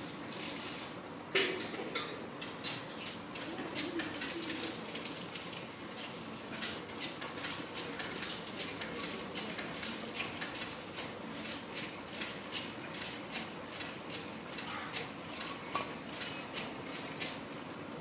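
Green parakeet's beak pecking at a small fruit in a metal plate: quick irregular taps and clicks of beak on metal. A sharp knock comes about a second and a half in, and the taps grow dense through the second half.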